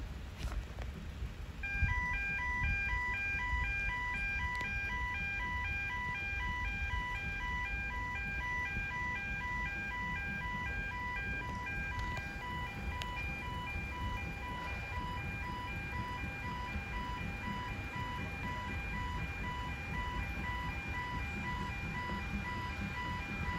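Level crossing audible warning: an electronic alarm pulsing rapidly between two alternating tones, starting about two seconds in and sounding steadily from then on. A low rumble runs underneath.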